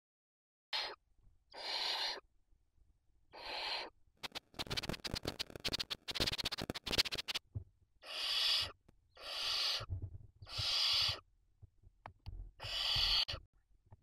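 Barn owls giving a series of harsh hissing calls, about seven in all, each roughly half a second long. In the middle comes a few seconds of rapid scratching and rustling as the owls move about on the nest debris.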